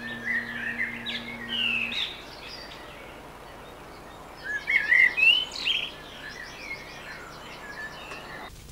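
Several songbirds singing and chirping together, a busy mix of short whistled phrases and rising and falling notes, busiest about halfway through. A low steady hum sounds under them for the first two seconds.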